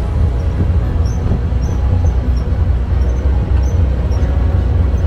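A vehicle driving along a paved road: a steady low rumble of engine and road noise, with faint short bird chirps now and then.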